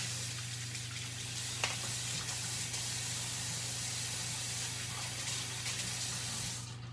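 Kitchen tap running in a steady stream while hands are washed under it, shut off abruptly near the end.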